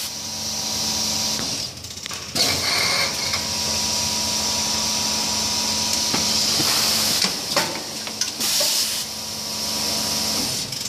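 Vertical form-fill-seal powder packaging machine with auger fillers running: a steady hiss and motor hum, with irregular clicks and knocks from its mechanism and a brief dip in the hiss about two seconds in.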